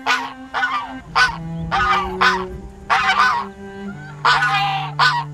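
Flock of domestic geese honking, a string of loud repeated honks at roughly two a second.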